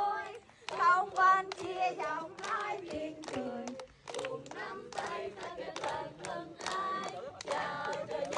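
A group of people singing together, clapping their hands in a steady rhythm.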